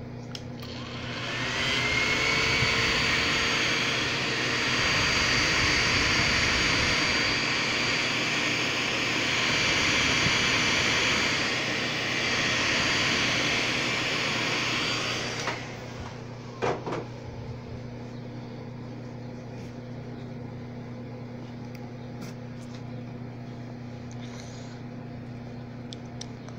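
Handheld hot-air blower switched on, whining up to speed and then blowing steadily for about fourteen seconds before cutting off suddenly. It is heating the phone's screen to soften the adhesive so the broken glass can be lifted off. A few short clicks follow just after it stops.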